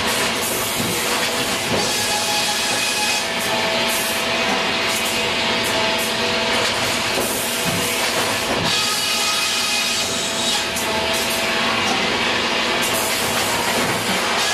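Grey Series 2000 reversing belt sawbench running in a sawmill, its saw cutting timber as the belt carries the flitch back and forth. It makes a steady machinery drone with a whine, and a high hiss that swells and eases several times as each cut goes through.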